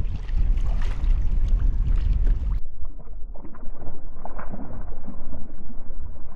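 Wind rumbling on the microphone over water. About two and a half seconds in, the sound cuts abruptly to a duller recording of the same wind and water.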